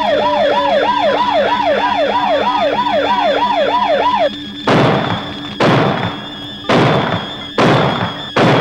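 A siren warbling rapidly up and down, about three times a second, cutting off just after four seconds in. It is followed by five heavy thuds about a second apart.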